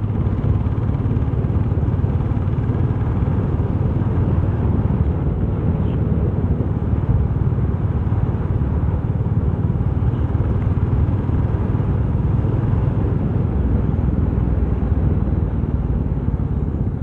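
Motorcycle engine running steadily at cruising speed, with wind and road noise over it.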